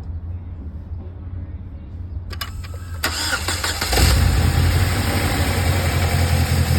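2007 Saab 9-3 2.0t's turbocharged four-cylinder engine starting: a few clicks, a short crank, then it catches about four seconds in and runs steadily at idle. The start shows the newly fitted cloned ECU works.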